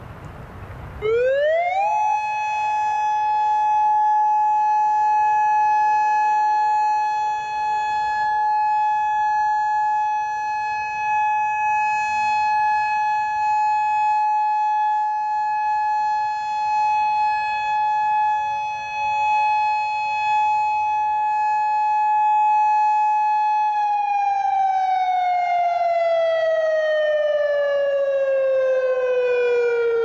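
Federal Signal Modulator 4016B electronic outdoor warning siren on a test, sweeping quickly up about a second in to one steady high tone, holding it for about twenty seconds, then gliding slowly down near the end.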